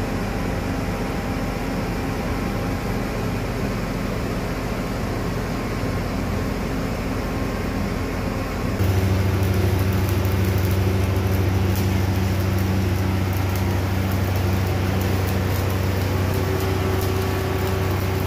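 Engine-driven rig welder running at a steady drone, with the hiss and crackle of an arc welding pipe. About nine seconds in the sound changes abruptly to a louder, deeper steady hum.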